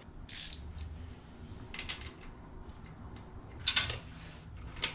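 A few short metallic clinks of a wrench on the minibike's rear axle nut and chain adjuster as the chain is tightened: one about a third of a second in, one near two seconds, a louder pair near four seconds, and one just before the end.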